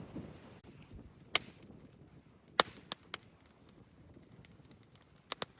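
A few sharp, isolated knocks and clicks at irregular intervals, the two loudest about a second and a half apart, over a faint, quiet background.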